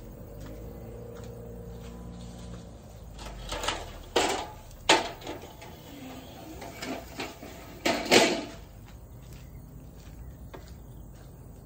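A faint low hum, then a string of sharp knocks and bumps off to one side, the loudest about four, five and eight seconds in.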